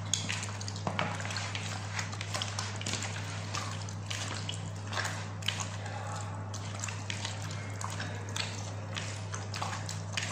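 Raw chicken pieces being squeezed and turned by hand in a wet marinade in a plastic bowl: irregular wet squelches and small slaps, over a steady low hum.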